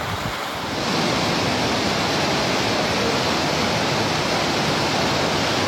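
Floodwater of a flash flood rushing along a street in a steady, loud torrent. About a second in it grows a little louder and brighter.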